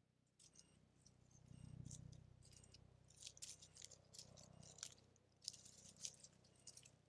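Red fox cubs moving over dry leaf litter at their den: a string of faint, short rustles and crackles from their paws and bodies in the leaves, over a low steady hum.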